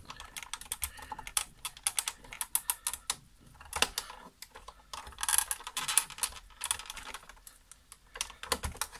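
Hard plastic clips and housing of a Nespresso CitiZ coffee machine clicking and rattling as they are worked loose by hand: many quick irregular clicks, thickest about four to six seconds in.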